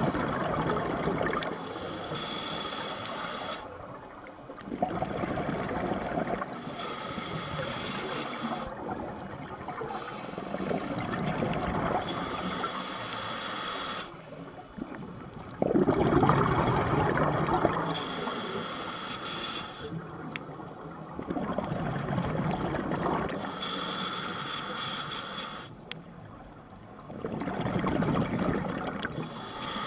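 Scuba regulator breathing heard through a GoPro underwater housing: a slow, regular cycle of a thin hissing inhale followed by a louder bubbling exhale, about every five seconds, six exhales in all.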